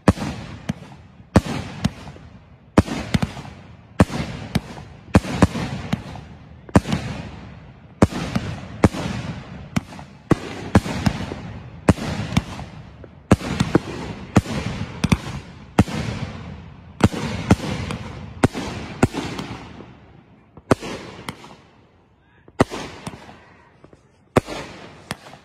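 Aerial fireworks finale: shells bursting in quick succession, sharp booms about one to two a second, each trailing off in echo. The barrage thins out about twenty seconds in, leaving a few last scattered bursts.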